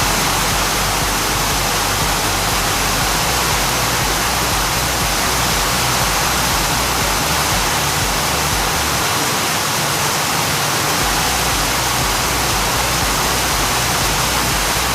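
Heavy rain falling, a dense, steady hiss.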